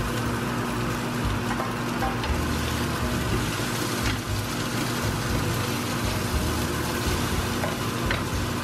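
Flaked salmon and onions sizzling in a frying pan as a spatula stirs them, with a steady low hum underneath.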